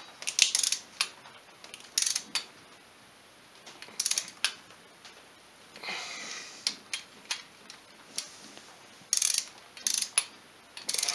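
Ratchet clicking in short bursts as a mechanic snugs up the cylinder head bolts on a Polaris 500 ATV engine before torquing them.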